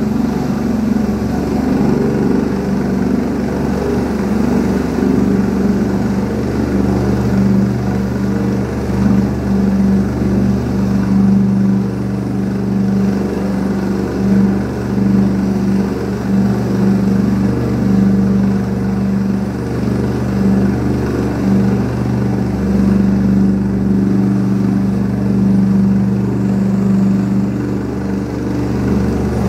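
Rescue helicopter running: a steady, loud drone of rotor and turbine with a constant low pitch that wavers only slightly in level.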